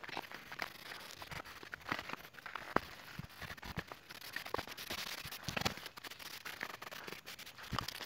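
Footsteps pushing through grass and undergrowth: an uneven rustling and scraping of leaves and stems, with many short sharp clicks scattered through it.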